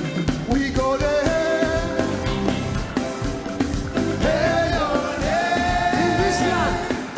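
Live gospel praise music: voices singing over a band with a steady drum beat, holding one long sung note in the second half.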